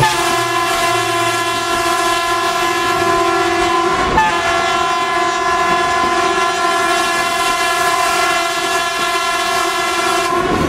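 Horn of a Dongfanghong 21 (DFH21) metre-gauge diesel locomotive sounding one long, steady blast of about ten seconds, with a brief hiccup about four seconds in, heard from inside a carriage of the moving train.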